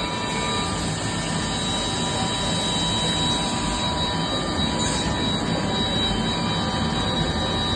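Törk Naviga 360 edge banding machine running: a steady mechanical noise with thin, high, constant whines on top.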